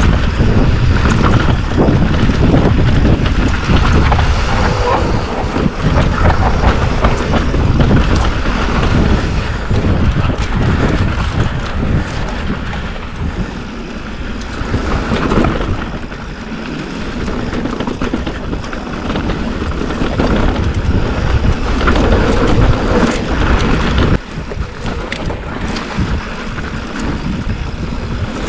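Electric mountain bike, a Specialized Turbo Levo, descending rough dry dirt singletrack: steady rumble of the tyres on the trail, with knocks and rattles from the bike as it hits bumps, under wind buffeting the microphone. It grows quieter for a few seconds about halfway through and again near the end.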